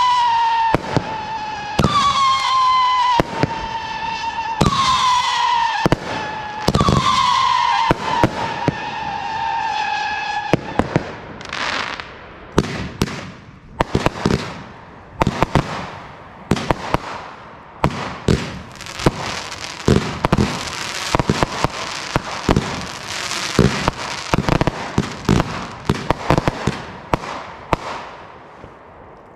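Consumer fireworks going off: for about the first ten seconds a string of whistling shots, each whistle falling slightly in pitch and cut by sharp bangs. A rapid run of bangs and crackling bursts follows, thinning out and fading near the end.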